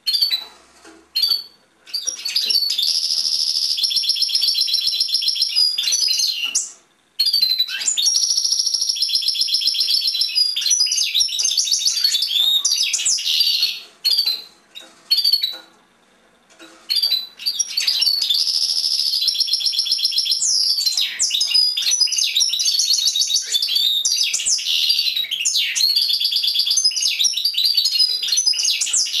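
European goldfinch singing: three long, high-pitched phrases of rapid trills and quick sweeping notes, separated by short pauses with a few single call notes.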